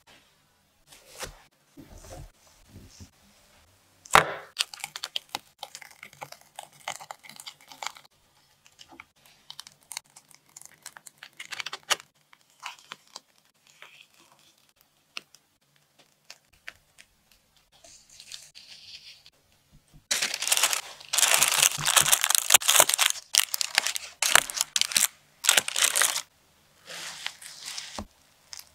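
Hands-on food preparation sounds: scattered soft taps, scrapes and rustles, then about six seconds of loud crinkling, tearing rustle about two-thirds of the way through, and a shorter burst of it near the end.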